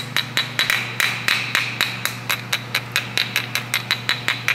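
Small ball-peen hammer rapidly tapping a new metal toothed ABS ring onto the outer CV joint of a driveshaft to seat it, with quick light metallic taps at about five a second.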